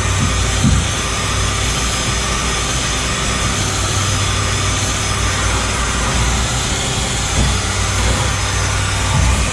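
Power drill spinning a wire wheel against a truck frame: a steady motor hum under an even hiss of wire bristles scrubbing metal.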